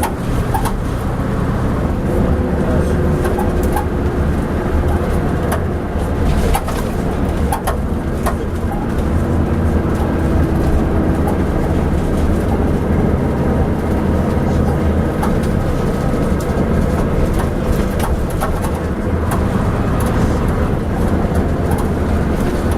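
Leyland Atlantean double-decker bus with ECW bodywork under way, heard from on board: the engine runs steadily, with short clanks and rattles from the bus at intervals.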